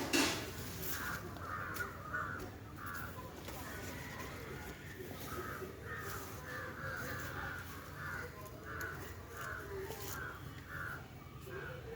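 Crows cawing over and over, a long run of short harsh calls about two a second. A sharp knock just at the start is the loudest sound.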